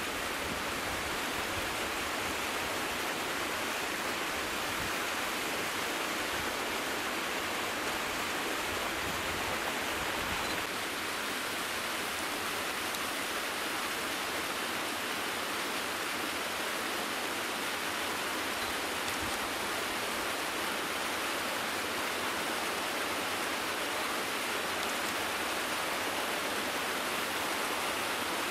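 Steady rushing of a mountain stream, with an uneven low rumble that dies away about a third of the way through.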